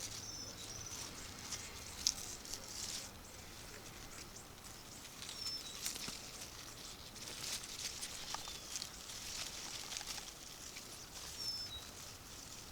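Soft rustling and crackling of radish leaves and loose garden soil being handled, coming in several short bouts. There are a few brief, faint high chirps from birds.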